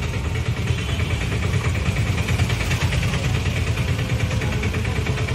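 A vehicle engine running steadily, a low, even drone with no change in speed.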